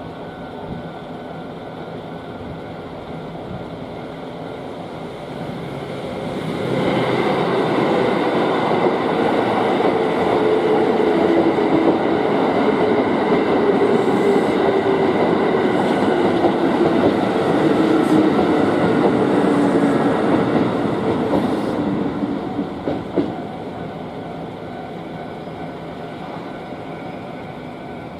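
An electric commuter train passes over a level crossing. It is loud for about 15 seconds, starting some 7 seconds in, and a motor whine falls steadily in pitch as it goes by. The crossing's warning bell rings steadily throughout, kept at full volume even with the barriers down.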